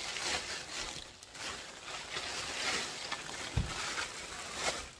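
Plastic mailer packages crinkling and rustling as they are handled and sorted, with a thump about three and a half seconds in.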